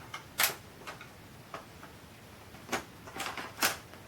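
Sharp clicks and knocks of a laptop hard drive being slid back out of its bay and lifted out, about five in all, the loudest about half a second in and near the end.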